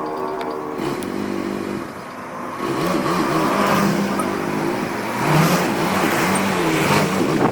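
Road traffic: vehicle engines passing and revving, their pitch rising and falling.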